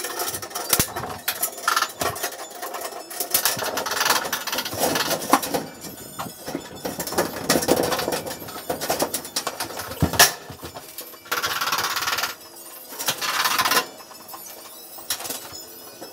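Light-gauge steel studs and track clanking and clicking as they are handled and fitted together, with two short bursts of a small power tool running about two-thirds of the way through, each lasting about a second.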